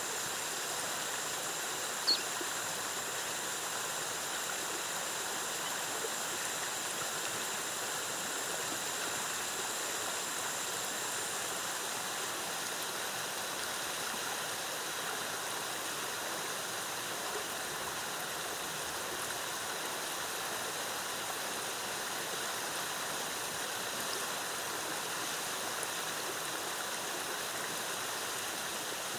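Waterfall cascading steadily, an even rushing of water. One short high chirp comes about two seconds in, and a faint high steady tone fades out about halfway through.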